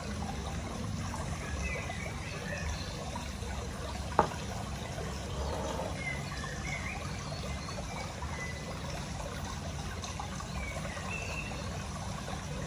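Steady trickling water, with a few faint short chirps and one sharp click about four seconds in.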